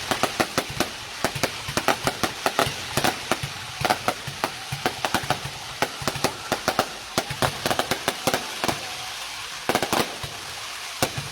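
Aerial fireworks going off in a rapid, irregular string of sharp bangs and cracks, several a second, over a steady hiss.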